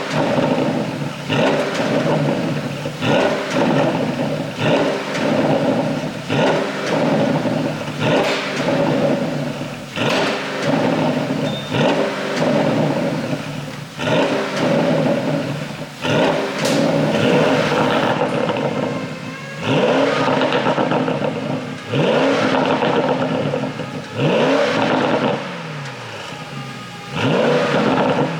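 Porsche Panamera GTS twin-turbo V8 exhaust revved over and over in quick blips, about one every one and a half to two seconds, the revs falling back after each; in the second half some revs are held a little longer.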